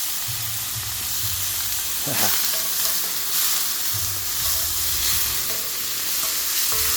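Chicken pieces and innards sizzling hard in hot coconut oil in a pan, the oil too hot, with a spoon stirring and scraping through them, one stroke standing out about two seconds in.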